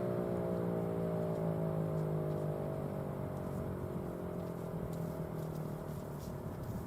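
Federal Signal 508-128 dual-tone outdoor warning siren winding down after an alert signal, its tones sliding slowly lower in pitch and fading out.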